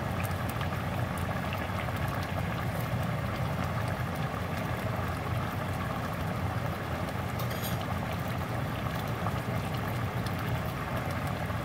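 Pot of pork mechado in tomato sauce boiling on an electric stovetop: a steady bubbling and low rumble, with one faint click about three quarters of the way through.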